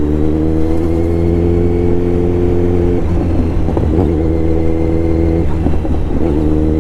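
Kawasaki Z900's inline-four engine running at a steady note while riding. The note wavers and breaks up about three seconds in, then settles steady again about two and a half seconds later.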